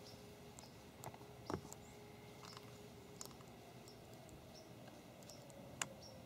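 Faint outdoor ambience: small high chirps repeating about every half second, a few soft clicks and rustles, and one sharp click near the end.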